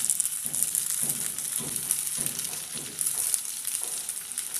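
Hot oil sizzling and crackling steadily as spring rolls shallow-fry in a frying pan.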